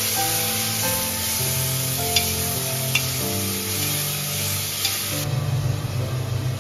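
Chopped tomatoes sizzling as they fry in an aluminium pressure cooker pot, stirred with a metal spoon that clicks against the pot three times. The sizzle stops abruptly about five seconds in.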